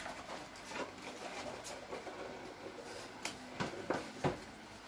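Quiet room tone with several faint, short clicks and taps, most of them in the second half.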